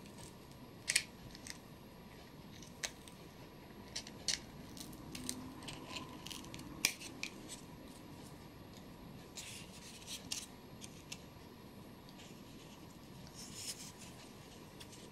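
Scissors snipping in short, irregular cuts as the edges of a small blue cup-shaped piece are trimmed, with soft handling of the piece between snips.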